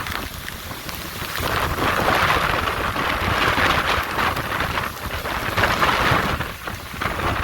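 Hurricane wind and heavy rain in gusts, with a low rumble beneath the hiss of the rain. The storm swells about a second and a half in, eases briefly, and surges again near the end.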